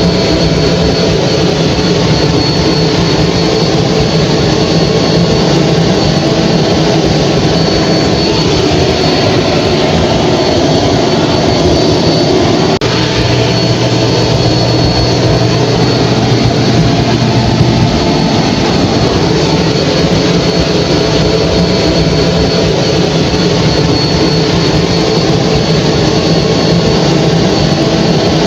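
Hair dryer running steadily: a loud, even rush of air with a motor hum and a thin high whine. A deeper hum comes in for a few seconds in the middle.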